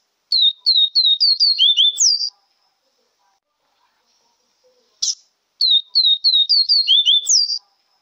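Male yellow-bellied seedeater (baiano) singing: a quick run of about nine down-slurred whistled notes ending in a rising upslur, given twice, each phrase about two seconds long with a short sharp note just before it.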